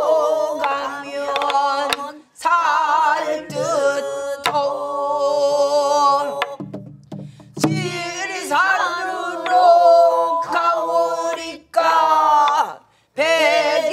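Pansori singing: a woman's voice sings long held notes with wide, wavering vibrato, phrase by phrase, and other voices join in. There are a few strokes on a buk barrel drum.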